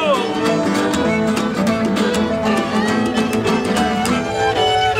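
Bluegrass instrumental with fiddles bowing the melody over a quick, steady guitar strum.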